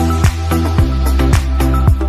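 Background dance music with a steady beat: a kick drum about twice a second over a bass line.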